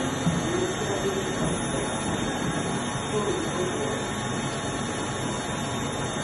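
Steady mechanical hum and hiss of workshop machinery running, unchanging throughout, with a few faint steady tones in it.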